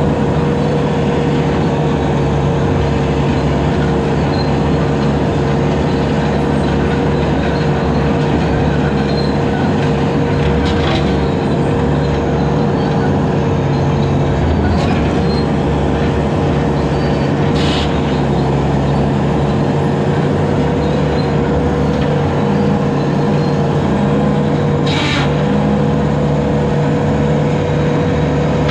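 Bobcat 873 skid steer's diesel engine running steadily at working speed while its 72-inch brush cutter spins on low-flow hydraulics, with a constant whine over the engine drone. A few brief sharp snaps stand out now and then.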